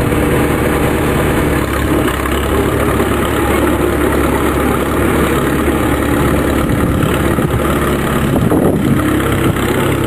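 Antique farm tractor engine running steadily at a low, even speed.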